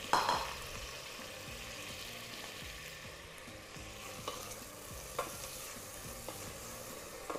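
Jasmine rice grains toasting in hot chicken fat and oil in a stainless steel pot: a light, steady sizzle as a wooden spoon stirs them, a little louder at the start, with a few sharp knocks of the spoon against the pot.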